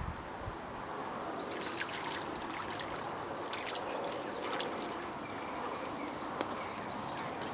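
Steady trickle of water at the loch edge, with scattered small drips and ticks.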